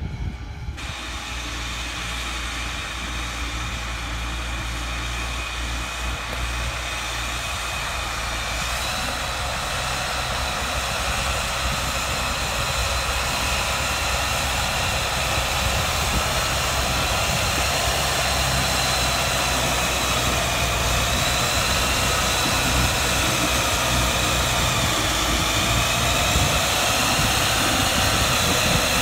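Zetor 9540 Turbo tractor's four-cylinder turbo diesel running steadily under load while pulling a disc-harrow seed drill, a deep drone with a steady high whine over it. It grows gradually louder as the tractor comes closer.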